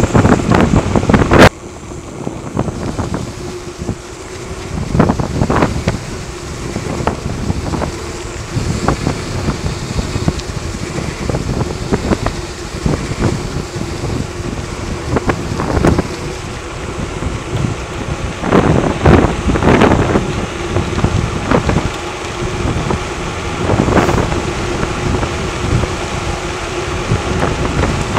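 Wind rushing over the microphone during a fast mountain-bike descent on asphalt, with tyre noise and short rattles and knocks from the bike. The wind is very loud for about the first second and a half, then drops and swells again now and then.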